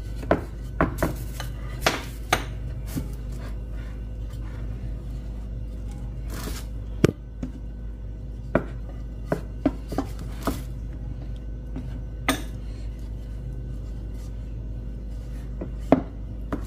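Irregular sharp taps and knocks on a kitchen work surface as a ball of yeast dough is flattened out, over a steady low hum.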